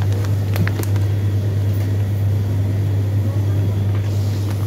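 A steady low hum, with a few light clicks in the first second.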